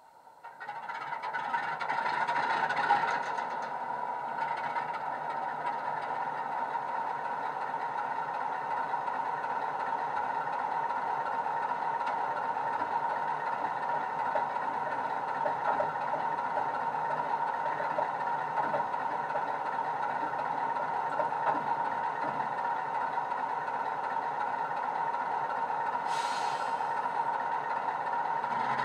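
DCC sound decoder in a Heljan OO gauge Class 45 model locomotive playing a Legomanbiffo recording of its Sulzer diesel engine through a small EM1 speaker: the engine sound rises over the first couple of seconds, then idles steadily. A brief hiss comes about 26 seconds in.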